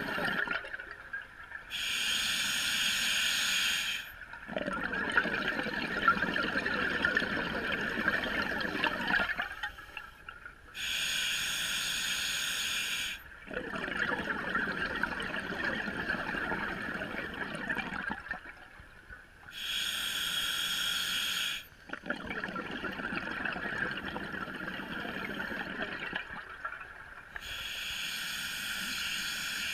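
Scuba diver breathing through a regulator underwater, slow and even: four breaths, each a hiss of about two seconds on the inhale, followed by four to five seconds of exhaled bubbles streaming from the regulator.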